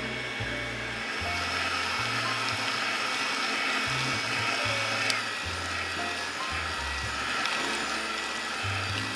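Electric hand mixer running steadily, its beaters whisking a runny egg batter in a glass bowl as milk is poured in, with a thin high whine from the motor. Background music with a bass line plays alongside.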